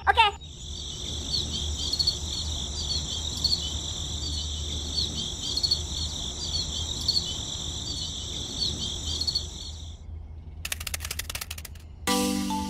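Crickets chirping in a steady, high, pulsing trill that stops about ten seconds in. A quick run of clicks follows, and a few music notes start near the end.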